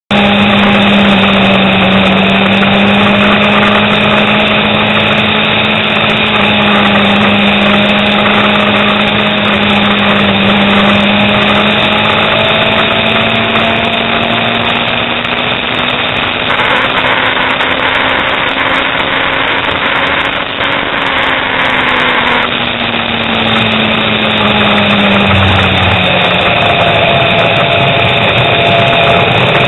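Motorcycle engine droning at a steady cruise under wind and road noise, heard from on board. Its pitch climbs slowly for about twenty seconds, then drops as the bike eases off for a bend.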